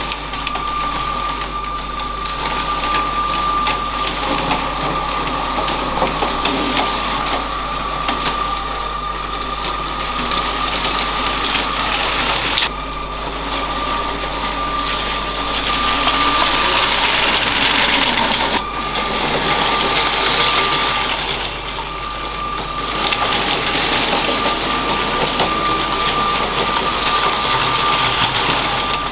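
A LEGO train's small electric motor running with a steady high whine while its wheels rattle along plastic track. The whine breaks off briefly twice, about a third of the way in and again past the middle.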